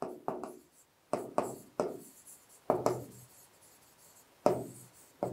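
Stylus writing on an interactive display panel: a series of short scratchy pen strokes in small groups with brief pauses between, as words are written out.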